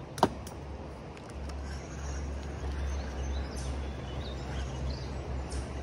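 Rushing water of river rapids as a steady hiss, with one sharp click about a quarter of a second in and a low rumble on the microphone from about a second and a half in.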